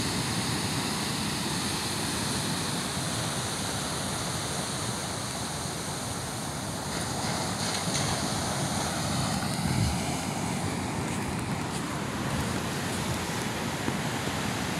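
Ocean surf breaking and washing up the beach as a steady rush, with wind buffeting the microphone.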